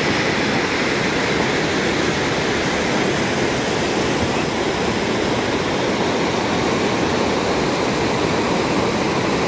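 Small waterfall pouring over boulders into a pool: a steady, loud rush of falling water.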